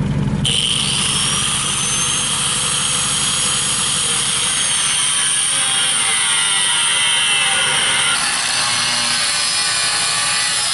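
Angle grinder with a cutoff wheel cutting through the steel wall of a propane tank: a loud, high-pitched whine with a harsh grinding hiss, starting about half a second in and changing tone near the end.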